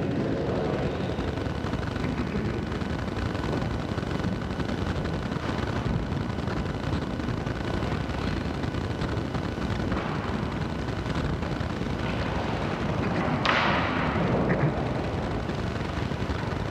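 Steady rushing background noise with no speech, and one brief louder rustle near the end.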